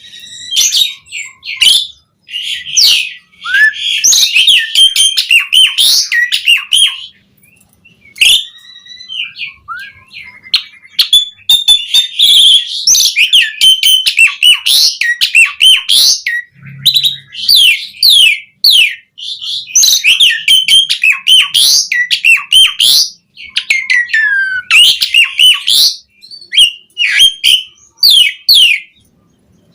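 Asian pied starling singing a long, loud, varied song of quick whistled and chattering notes, sweeping glides and harsh rasping calls, in phrases broken by short pauses.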